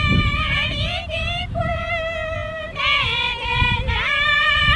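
A high voice, likely a woman's, singing a melody of long held notes that change pitch about every second, over a low background rumble.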